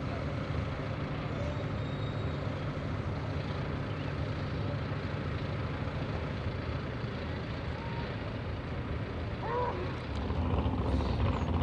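Classic modified pulling tractor's engine idling steadily at the end of its pull, a low even rumble.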